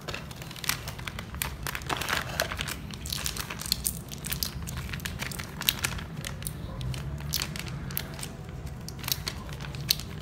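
Small plastic letter tiles clicking and clattering against each other and a tiled floor as they are turned over and spread out by hand, in irregular short clicks.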